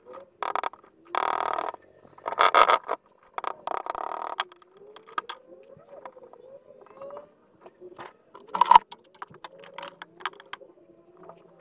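Metal parts of an old angle grinder being handled as its cutting disc and flange come off the spindle: clinks, rattles and scraping, with several loud scraping bursts in the first few seconds and a sharp metal clank about two-thirds of the way through.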